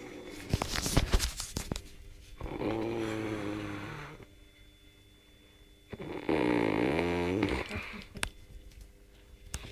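Heavy snoring: two long snores about four seconds apart, the second louder, its pitch dipping and rising again. A few clicks and rustles come before the first.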